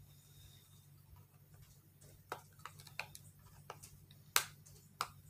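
Cosmetic packaging being handled: a scattering of small sharp clicks and taps, the loudest about four and a half seconds in, over a low steady hum.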